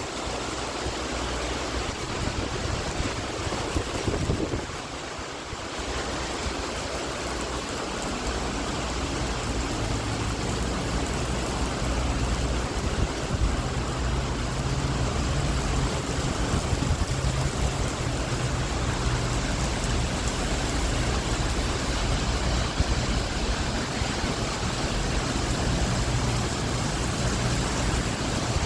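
Strong thunderstorm wind with driving rain: a steady rushing hiss, with a low rumble underneath that grows stronger about a third of the way in.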